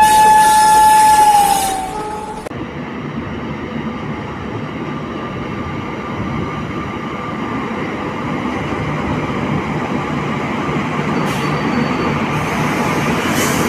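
WAP-4 electric locomotive's horn sounding one steady tone that sags in pitch and stops about two seconds in. The steady running noise of the train on the track follows and slowly grows louder.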